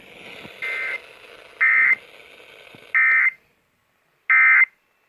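Emergency Alert System end-of-message data bursts closing the required monthly test: four short, buzzy digital squawks about a second apart. The first two sit over faint radio hiss.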